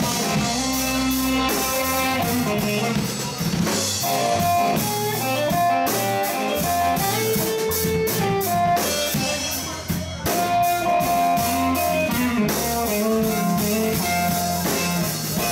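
Blues band playing live: an electric guitar picks a single-note lead line of held notes over bass and drum kit, with no singing.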